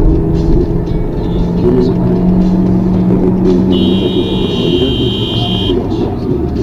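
Steady road and engine rumble heard from inside a car cruising on a motorway. Midway a steady high tone sounds for about two seconds and cuts off sharply.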